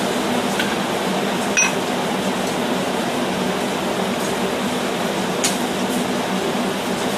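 Steady rushing noise with a low hum, with a few light metallic clinks from blacksmith tools and hot steel stock on a steel plate; the clink about a second and a half in rings briefly.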